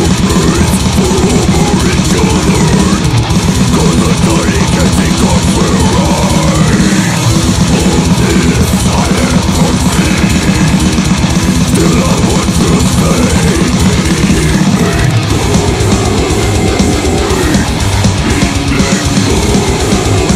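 Progressive death metal recording: heavily distorted guitars over fast, dense drumming, played loud and without a break.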